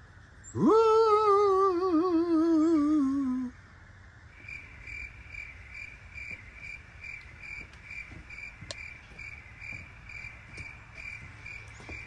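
A spooky, wavering "ooooh" voice that swoops up, then slowly sinks with a wobble over about three seconds. After it, crickets chirp steadily in quiet, evenly spaced pulses.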